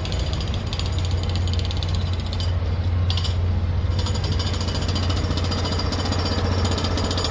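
Construction machinery running steadily nearby: a loud low hum with a rapid, even pounding, like a jackhammer at work.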